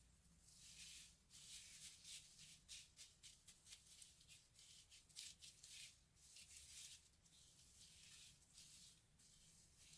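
Crunchy slime being squeezed and worked by hand, giving a run of faint, irregular crackles and clicks that come thickest around the middle.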